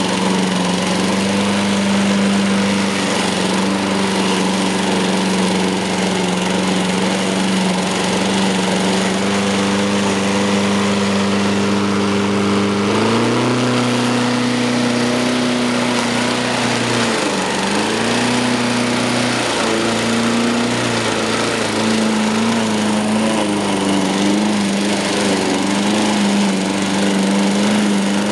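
A lawn mower's small Briggs & Stratton engine runs steadily while cutting through snow. Its pitch steps up a little about halfway through, dips briefly and recovers a few seconds later, then wavers slightly near the end.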